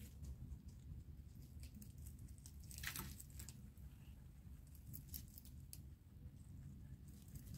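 Rabbits nibbling fresh green leaves: faint, scattered crisp clicks of chewing and leaves being pulled, with a louder cluster about three seconds in.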